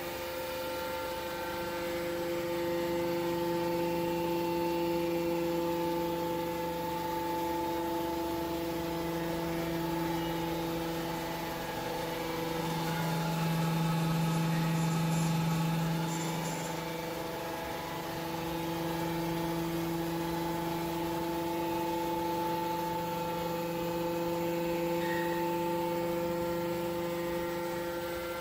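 Hydraulic pump of a test rig running under an automated load ramp: a steady mechanical hum with several constant tones, its low hum swelling for a few seconds around the middle as the load peaks.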